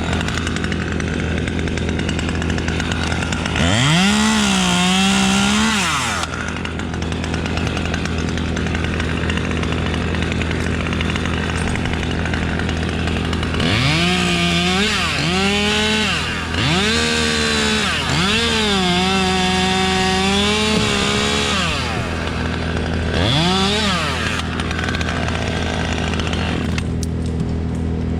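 Chainsaw idling, then revving up to cut several times: once about 4 seconds in, in a run of revs from about 14 to 22 seconds, and briefly near 24 seconds, dropping back to idle between cuts.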